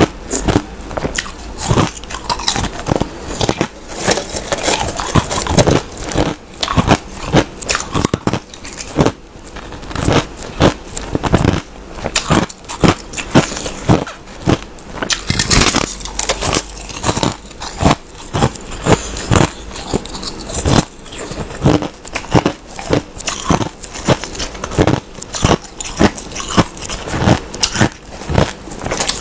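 A person biting and chewing mouthfuls of crushed ice: a dense, irregular stream of sharp crunches and crackles, several a second.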